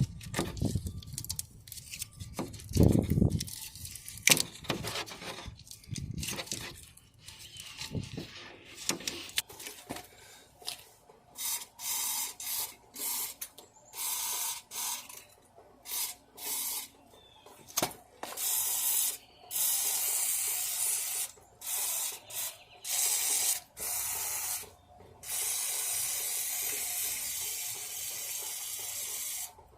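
A few knocks and clatter of handling, then repeated short bursts of hissing spray, each about a second long, switched on and off sharply, ending with one longer burst of about four seconds.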